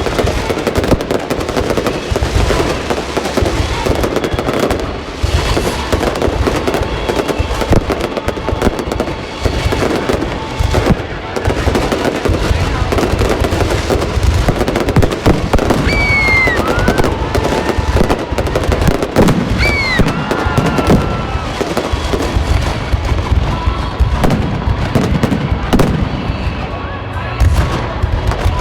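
Fireworks going off in a rapid, continuous barrage of bangs and crackling. Two short falling whistles sound about two-thirds of the way through.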